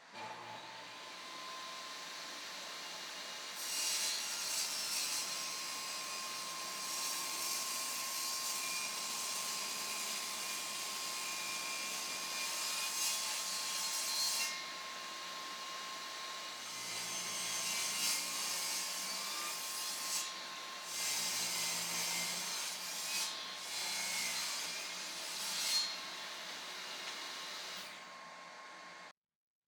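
A power tool running with a steady whine while cutting or shaping wood, growing harsher in passes, about 4 to 14 seconds in and again from about 17 to 28 seconds.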